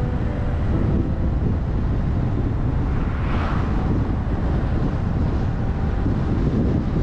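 Car driving along the road: steady low wind-on-microphone rumble and road noise, with a brief swell of hiss about three and a half seconds in.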